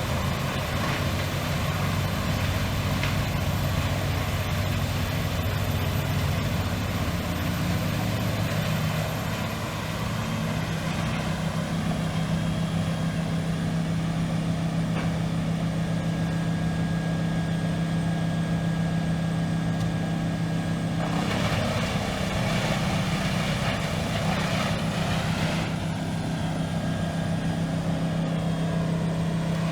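Diesel engine of an industrial whole-tree shredder (wood chipper) running steadily under work, a deep drone whose pitch shifts about nine seconds in and then holds. For about five seconds starting some twenty seconds in, a harsher rushing noise rises over the drone.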